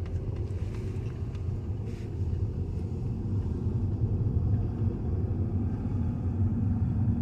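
2010 Toyota Matrix driving slowly, heard from inside the cabin with a window open: a steady low rumble of road and running gear. This is the car whose rear makes a grinding noise on braking, which the driver takes for something grinding against the brake rotors.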